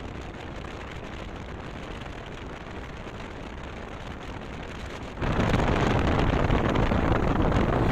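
Wind rushing over the microphone of a camera on a moving motorcycle's handlebars, riding in the rain, as a steady noise with no clear engine note. The noise jumps sharply louder about five seconds in.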